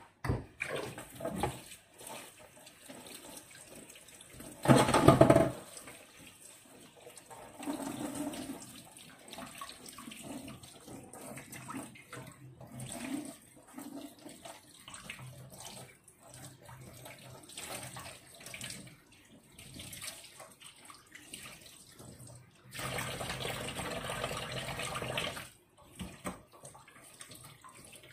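Kitchen tap water running in short spells while a gutted fish is rinsed at the sink, with clatter of handling in between. There is a loud short gush about five seconds in and a steadier run of about three seconds near the end.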